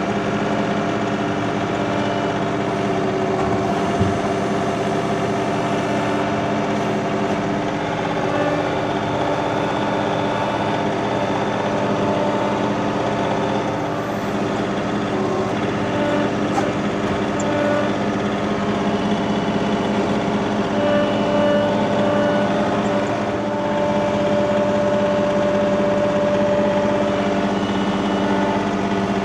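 Compact tractor engine running steadily at a constant working speed, with one short knock about four seconds in.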